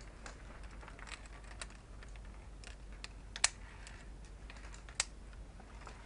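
Irregular light clicks and taps of via ferrata climbing gear during a descent, with two sharper, louder clicks about three and a half and five seconds in.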